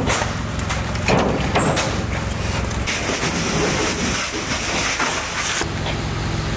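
Fireground noise at a building fire: a steady low engine hum, likely fire-engine machinery, runs under scattered knocks and clicks. A loud hissing rush then takes over for a couple of seconds, and near the end it gives way abruptly to the steady engine hum again.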